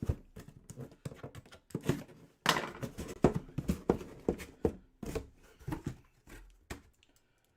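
Close handling of a trading-card hobby box and its wrapping: a quick run of taps, clicks and rustles, busiest around the middle.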